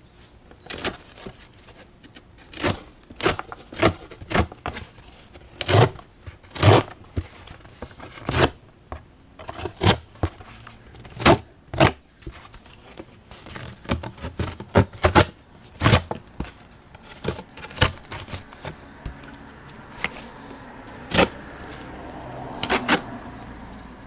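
Leatherman Wingman's partly serrated combo blade sawing through cardboard: a long run of sharp ripping and scraping strokes at an uneven pace. The blade is well worn and due for sharpening, and it cuts poorly.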